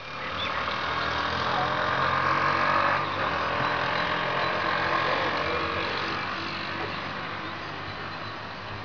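A motor vehicle driving past on the road below, its engine loudest about two to three seconds in and then slowly fading away.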